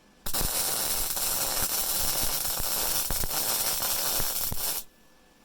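Rohr MIG-250MI inverter MIG welder's arc crackling steadily as a bead is run on 5.5 mm mild steel at power 3 and wire speed 3. It starts suddenly about a quarter second in and stops abruptly after about four and a half seconds.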